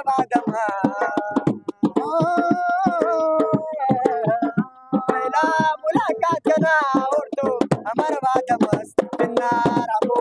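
Live music: a voice singing long, wavering phrases over quick, sharp percussive hits.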